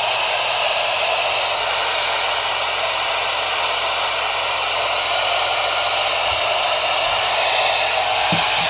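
Weather radio receiver hissing with steady static, with no voice coming through.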